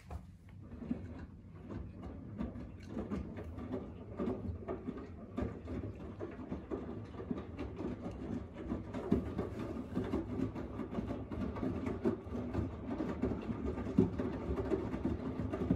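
Front-loading washing machine running a wash, with a dense run of small irregular clicks and knocks over a low rumble that grows louder over the first couple of seconds.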